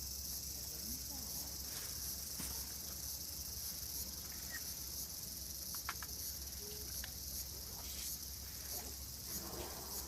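Steady high-pitched chorus of summer insects, with a low hum underneath and a few faint clicks.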